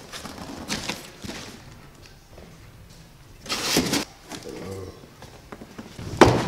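Handling noises as a diesel injection pump is unpacked from a cardboard box onto a workbench: light scuffs, a louder rustling burst a few seconds in, and a sharp knock near the end.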